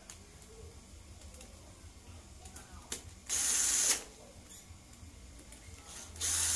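Cordless drill-driver spinning bolts down into a motorcycle engine crankcase, in two short runs of well under a second each, about three seconds apart.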